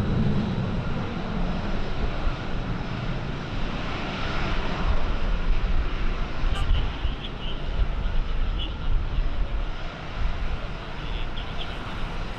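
Aircraft engine running steadily, with strong wind rumbling on the microphone.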